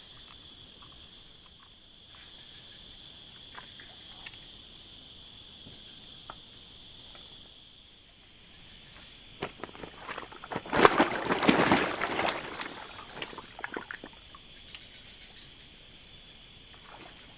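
Steady chorus of insects in tropical forest, a continuous high-pitched chirring. About ten seconds in, a loud, rough noise lasts roughly two seconds, with a few scattered clicks around it.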